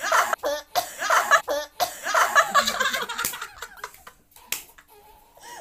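Several people laughing in choppy bursts, with a couple of sharp smacks in the second half.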